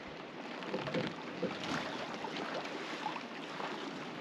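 Becalmed 1965 Alberg 30 sloop rocking gently on a glassy sea: a steady soft hiss, which sounds like low radio static, with scattered light knocks and water sounds as the boat bobs.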